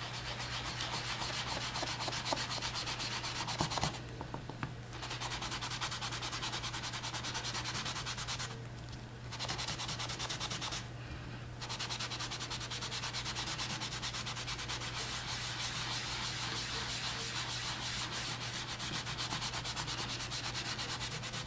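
An inked craft sponge rubbed quickly back and forth over masking tape laid on cardstock: a fast, scratchy rubbing, broken by three short pauses.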